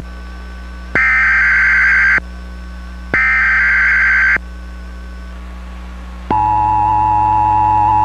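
Emergency Alert System header from a cable system's EAS test: two one-second bursts of the digital SAME data tones, about a second apart. About six seconds in, the steady two-tone EAS attention signal begins and holds.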